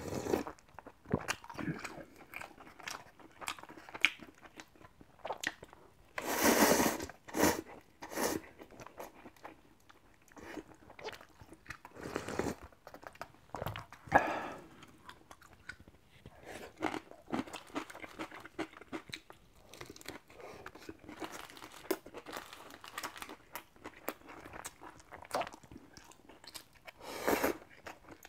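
Close-up eating sounds: crisp, crunchy chewing of kimchi, broken by a few louder slurps of noodle-soup broth drunk from the bowl.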